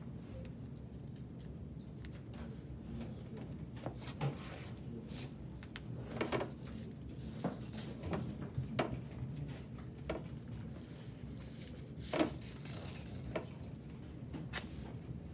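Athletic tape being pulled off the roll and torn while it is wrapped around an ankle: scattered short rips and crackles over a steady low room hum.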